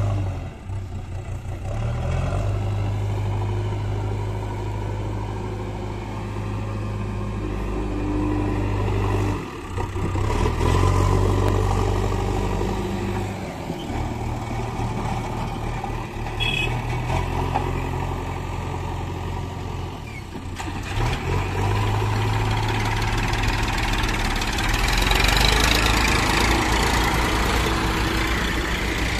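Diesel engines of a JCB backhoe loader and a tractor running steadily, the JCB's engine working harder as it lifts its loader bucket. The engine note and level change abruptly several times, and it is louder near the end.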